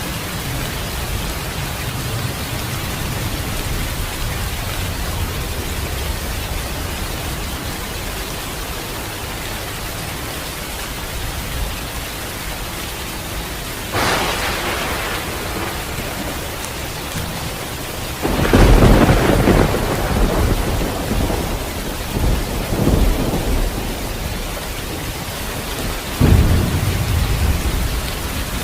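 Steady rain with thunder: a sharp crack about halfway through, then loud rolling rumbles that come and go, with another strike near the end.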